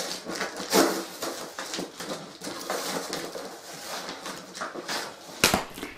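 A blunt knife sawing and scraping at packing tape and cardboard, a run of uneven rasping strokes, with a sharp knock about five and a half seconds in.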